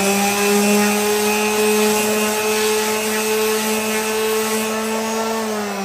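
Electric random orbital sander running at a steady pitch while its pad sands the edge of a wooden stool leg to round it over. Near the end the motor is switched off and its pitch starts to fall as it winds down.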